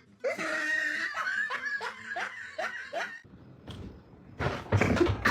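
A person laughing in a quick run of short bursts for about three seconds, then a loud noisy rustle or clatter near the end.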